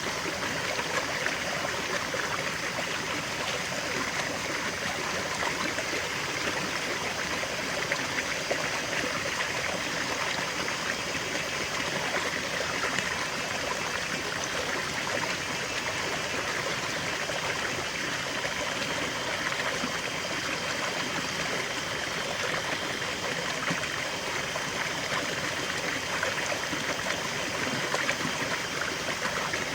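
River water flowing over stones, a steady rush with a light trickling and babbling texture.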